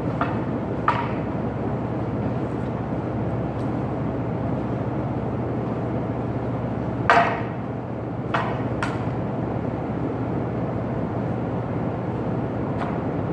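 Wooden half-staffs clacking together in sparring: about six sharp knocks, the loudest about seven seconds in and a quick pair shortly after, over a steady hum.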